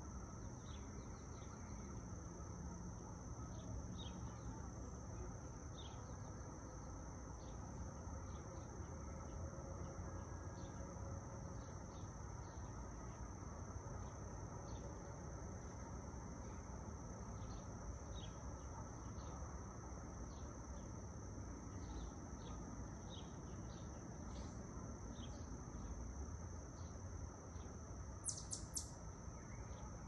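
A steady, high-pitched drone of insects over a low, even rumble of light traffic, with scattered short bird chirps; near the end come three quick, louder chirps.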